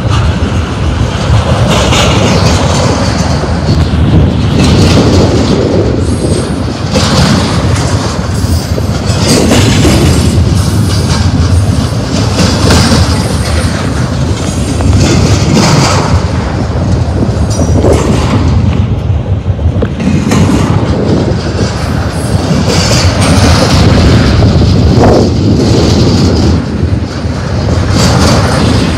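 Double-stack intermodal well cars rolling past at close range: a loud, steady rumble of steel wheels on rail. A clack-and-surge comes every few seconds as each set of wheel trucks passes.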